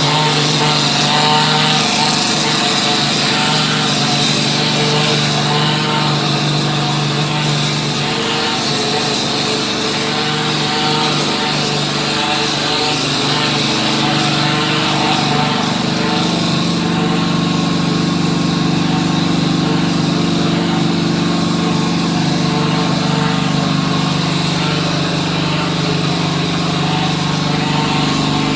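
Plastering machine spraying gypsum machine plaster: its motor and air supply run steadily, with a few slow shifts in pitch partway through.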